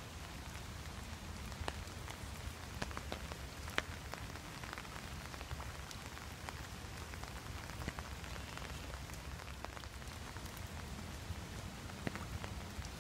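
Steady rain falling on an umbrella overhead and on the river surface, with scattered single drops ticking sharply over a low, even hiss.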